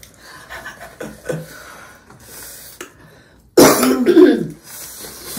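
A woman coughs loudly twice in quick succession, about three and a half seconds in, with the burning heat of the very spicy sauce she is eating as the likely cause.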